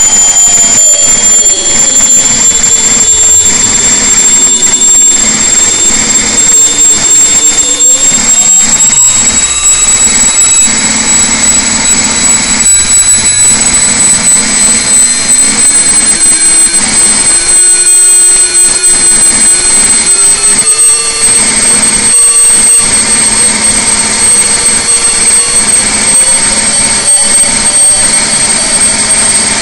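Detroit Diesel Series 60 inline-six turbodiesel running at full throttle on an engine dyno under steadily rising load, its speed easing just above 2,100 rpm. A high turbocharger whine rises slowly in pitch as boost builds, over the loud, steady engine noise.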